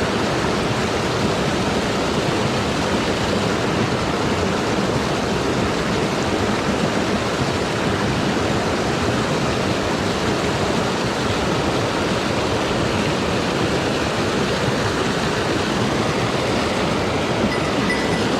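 Mountain stream rushing over rocks, a steady even noise of flowing water.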